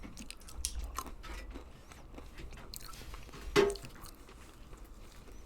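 Faint scattered clicks and light knocks from parts being handled, with one louder knock about three and a half seconds in.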